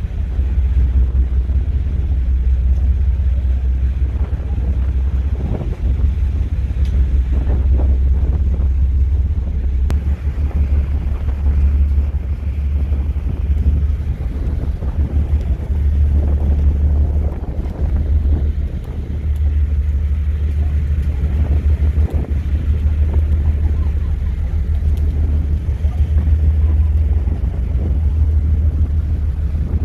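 A high-speed ferry under way: a deep, steady rumble of engines and churning wake, with wind buffeting the microphone.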